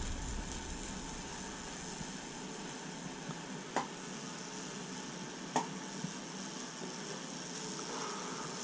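Wood sizzling as high-voltage current from a neon sign transformer burns branching Lichtenberg figures into a wooden pistol stock: a faint, steady hiss, with two sharp cracks near the middle.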